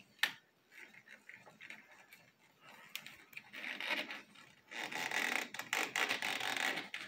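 Oil filter wrench and rag scraping and rubbing against the oil filter of a 40 hp four-stroke Mercury outboard as the wrench is worked onto it. A sharp click comes about a quarter second in, and the scraping is loudest a little before 4 seconds in and again from about 5 to 7 seconds in.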